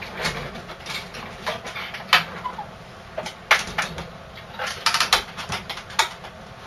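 Irregular sharp knocks and clicks from a person moving in a small room: footsteps, a swivel office chair creaking as he sits and leans back, and shoes landing on a metal filing cabinet about six seconds in.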